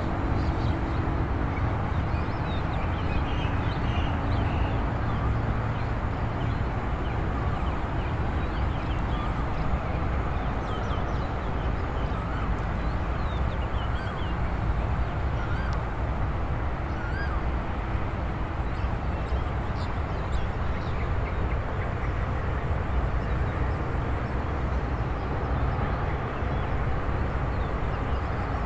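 Rural outdoor ambience: many small birds chirping over a steady low rumble, with a faint distant engine hum coming and going.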